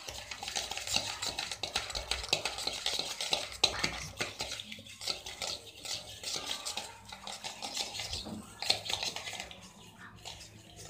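Wire whisk scraping and clinking rapidly against a stainless steel bowl as butter is beaten in it; the strokes thin out and get quieter near the end.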